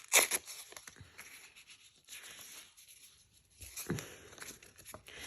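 Paper being torn and handled: a short rip just after the start, then quieter intermittent rustling and scratching.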